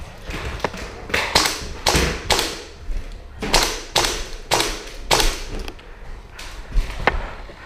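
Gas blowback airsoft rifles firing single shots: about a dozen sharp pops at uneven intervals, some in quick pairs.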